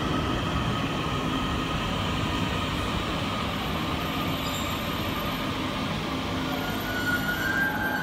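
Passenger train running on the rails, a steady rumble with a faint thin squeal from the wheels near the end.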